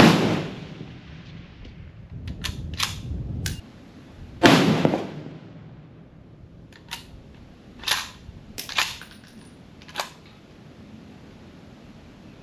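.308 rifle firing two loud shots about four and a half seconds apart, each with a short ringing tail. Several short, sharp clicks come between and after the shots.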